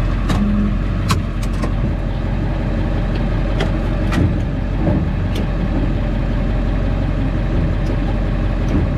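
1999 Ford F-450's 7.3-litre diesel engine running with a steady low drone, with a handful of short, sharp clicks or rattles scattered through.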